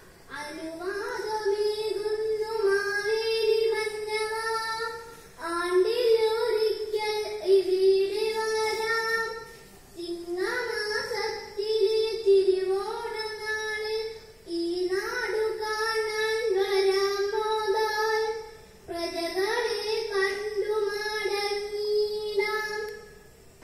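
A young girl singing a kathaprasangam song solo, in five lines of about four seconds each with short breaks between them; each line opens with an upward slide and then holds a steady note.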